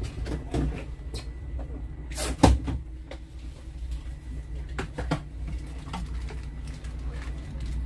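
A few sharp knocks and clatters, the loudest about two and a half seconds in and two close together about five seconds in, over a steady low rumble from the fishing boat.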